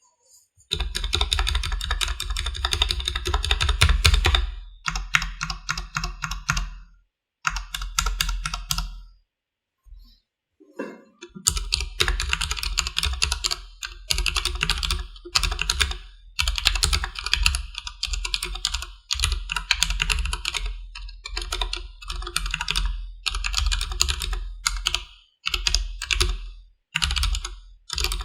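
Typing on a Durgod Taurus K320 tenkeyless mechanical keyboard with stock Cherry MX Black linear switches: rapid runs of key clacks in bursts. There is a brief lull about ten seconds in.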